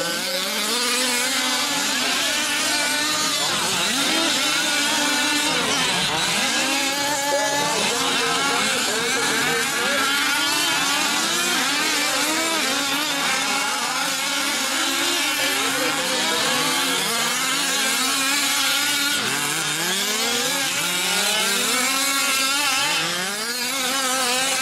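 Several 5th-scale RC trucks' small gas two-stroke engines racing together, their pitches overlapping and rising and falling as they rev up and back off.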